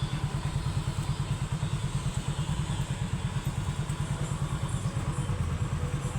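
Motorcycle engine running steadily, with a rapid even low pulse.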